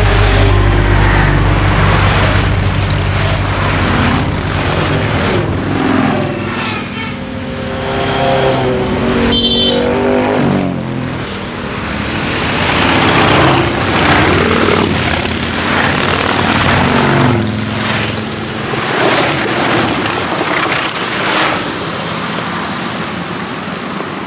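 A stream of motorcycles, mostly Harley-Davidson V-twins, riding past one after another. The engines run and rev, their pitch rising and falling as each bike comes by.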